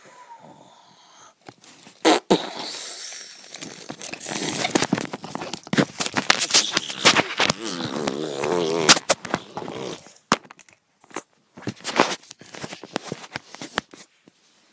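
Close-up handling noise: fabric rustling and sharp knocks as toy figures and the camera are pushed against a blanket, busiest from about two to ten seconds in, with a brief wavering, buzzy mouth-made sound near the eight-second mark. Only scattered clicks before and after.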